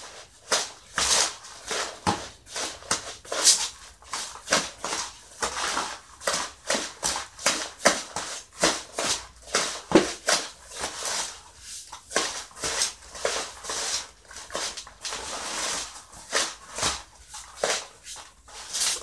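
A thin metal trowel scraping and stirring a gritty cement-and-gravel mix in a plastic basin: irregular scratchy strokes, about two or three a second.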